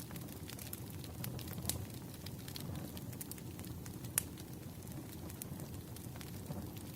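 Campfire burning with a steady low rumble and scattered crackles and pops; one sharper pop about four seconds in.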